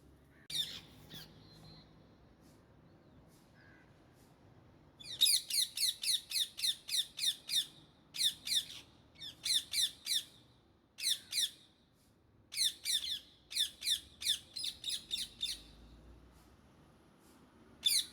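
Indian ringneck parakeet squawking in runs of rapid, shrill, downward-sweeping calls, about four or five a second, broken by short pauses. A single call comes a little after the start.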